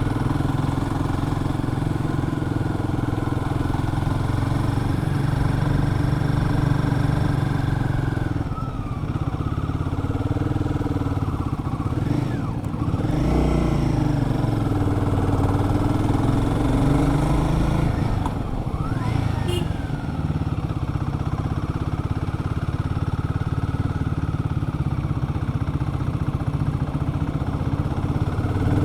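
Royal Enfield Guerrilla 450's single-cylinder engine running under way on a ride, its note dropping as the throttle is eased about eight seconds in and again near eighteen seconds, then picking back up.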